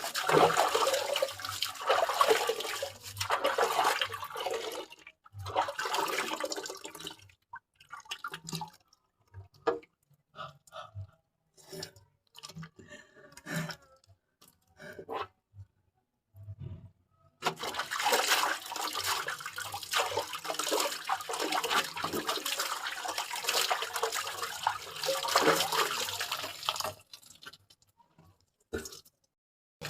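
Water splashing and sloshing in two long stretches, with scattered drips and small splashes between them.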